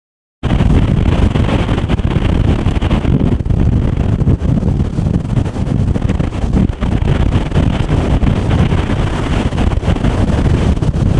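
Storm-force wind buffeting the microphone, a loud, steady low rumble, with the roar of heavy ocean surf mixed in. It cuts in suddenly just after the start.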